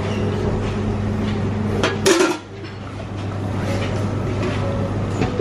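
Stainless steel pot lids clanking against their pots as they are lifted and handled, with the loudest clatter about two seconds in, over a steady low hum.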